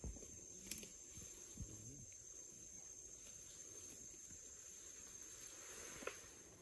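Faint ambience of a steady high-pitched insect drone, with soft rustling and a few faint low sounds.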